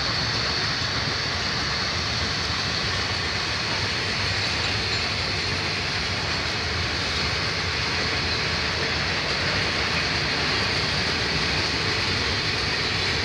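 Empty container flat wagons of a freight train rolling slowly along the rails, a steady wheel-on-rail noise with no distinct clicks or squeals.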